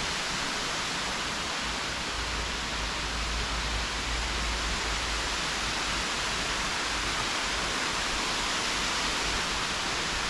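Steady, even rush of a waterfall, with a low rumble from about two to six seconds in.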